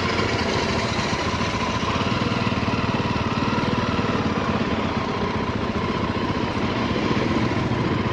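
Motorcycle engine running steadily under way, a fast, even pulsing with a low hum and no change in pace.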